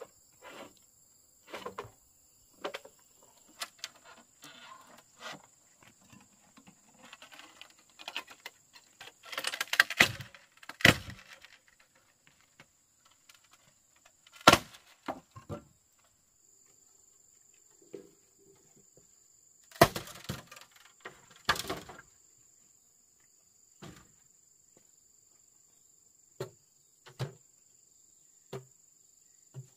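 Irregular knocks and thuds from manual work, the loudest in clusters about ten and twenty seconds in, with a single sharp hit in between. Under them runs a steady high insect drone.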